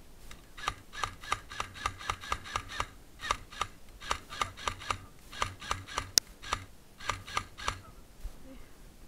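Airsoft rifle firing rapid single shots, about three or four a second, in five strings with short pauses between them. One sharper crack just after six seconds is the loudest sound.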